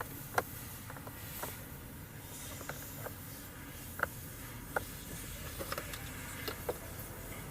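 A dozen or so scattered light clicks and ticks over a low steady hum, with no starter cranking or engine turning over.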